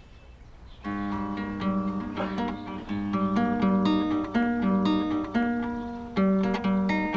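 Acoustic guitar picked note by note, a simple melody starting about a second in. It is a beginner playing the same short phrase over and over, the only part he has learned.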